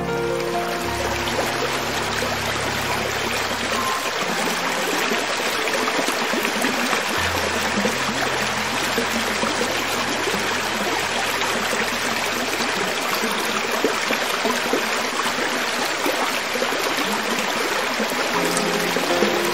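Creek water running steadily over rocks, an even rushing and trickling, with a low held music note underneath for a few seconds at a time.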